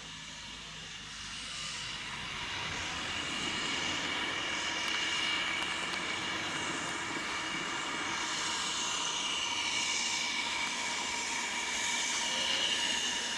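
A train running by, growing louder over the first few seconds and then holding steady, with a high whining ring over the running noise.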